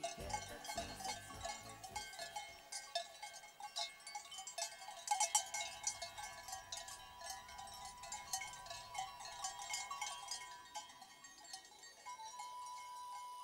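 Cowbells on a herd of grazing cattle clanking and ringing irregularly, several bells overlapping at once. About twelve seconds in, a single held musical tone comes in.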